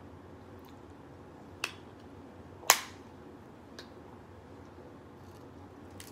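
Cooked crab leg shells cracking as they are snapped apart by hand: a few sharp cracks, the loudest about two and a half seconds in.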